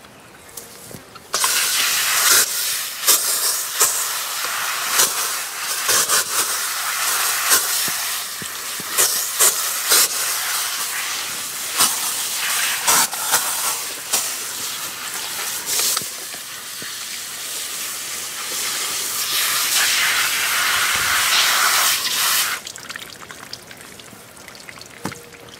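Water spraying steadily onto a dog's coat during a bath, starting about a second and a half in and cutting off near the end, with scattered clicks and splashes.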